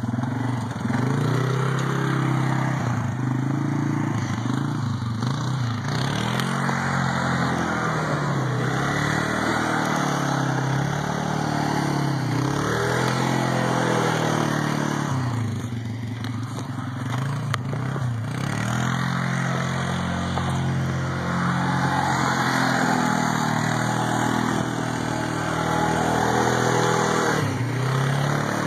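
Can-Am ATV engine running close by, revving up and down again and again as the quad is driven around in snow.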